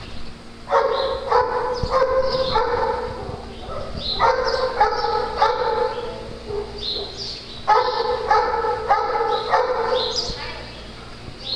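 A dog barking in three runs of three or four barks each, with a pause of a second or so between runs. Short, higher yips sound between the barks.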